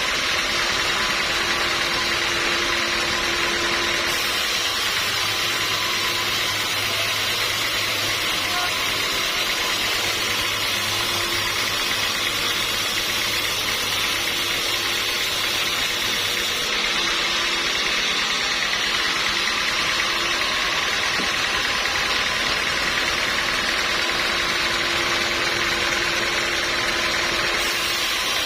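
Sawmill machinery running with a steady, unbroken mechanical noise that neither rises nor falls.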